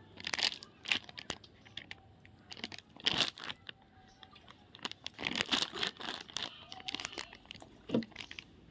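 Irregular crinkling and rustling from hands handling something: short bursts about a second in, around three seconds, a cluster around five to six seconds, and one near the end.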